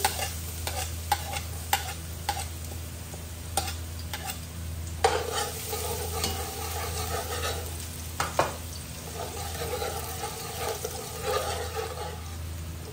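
Minced garlic sizzling in hot oil in an aluminium pot while a metal spoon stirs and scrapes it, with sharp clinks of the spoon on the pot, the loudest about five and eight seconds in.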